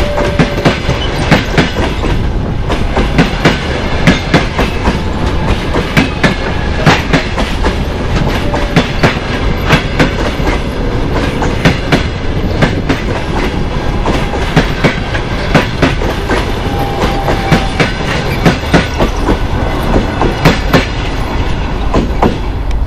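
Passenger coaches rolling past close by, their wheels clicking rapidly and unevenly over the rail joints (clickety-clack) over a steady rumble.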